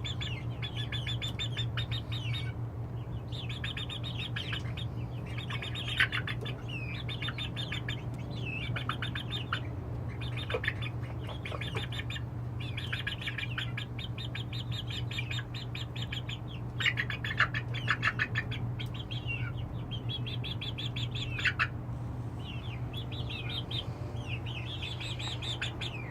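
A group of young chicks peeping constantly in quick high chirps, over a steady low hum.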